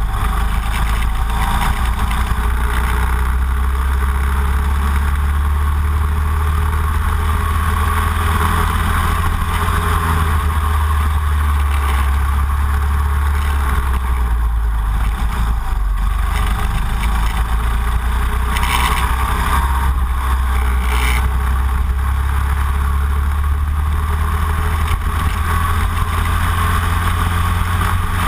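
Racing kart engine running hard at speed on track, heard from a camera mounted on the kart behind the driver. Its note dips briefly a little past the middle and picks up again.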